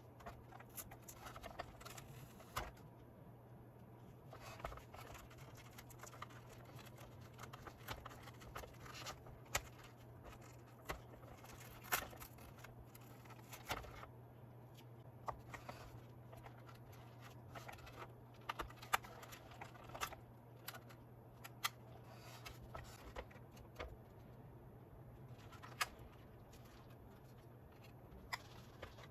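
Irregular light clicks and taps of small parts and tools being handled while a small mechanism is taken apart, over a steady low hum.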